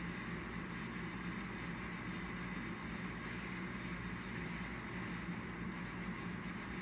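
Oxy-fuel bench glassworking torch burning with a steady hiss while clear glass rod is melted in its flame.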